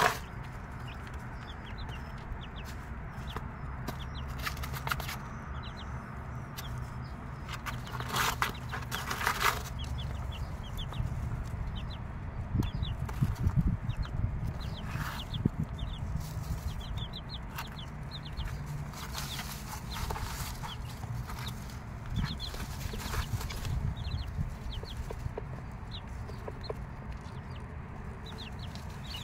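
Six-day-old chicks peeping with many short, high cheeps throughout, while the mother hen clucks low, most around the middle.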